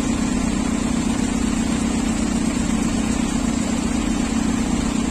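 Light truck's diesel engine idling steadily.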